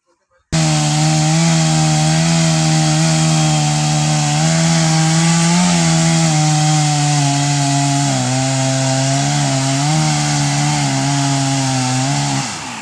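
Chainsaw running at high speed, cutting through a coconut palm trunk. It starts abruptly about half a second in, and its pitch sags a little at times as the chain takes load. It stops abruptly near the end.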